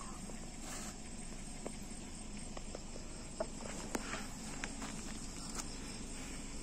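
Night insects such as crickets chirring steadily, with scattered clicks and crackles of footsteps and handling on dry leaves and twigs.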